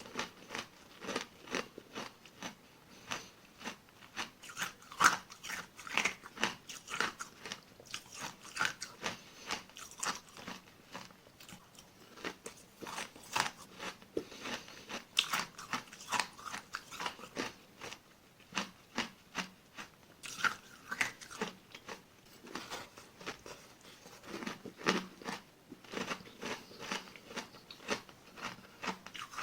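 Small granular ice pellets being bitten and chewed close to the microphone: a continuous, irregular run of crisp crunches, not very loud.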